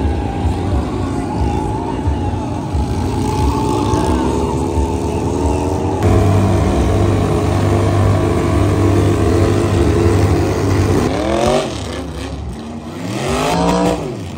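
Dirt bike engines revving during supercross racing, their pitch climbing and dropping as the riders accelerate and back off. Several steep rises and falls in pitch come after about eleven seconds in.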